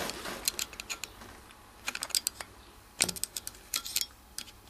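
Light metallic clicks and taps of a screwdriver tip working at the valve collets inside a compressed valve spring retainer, coming in irregular clusters.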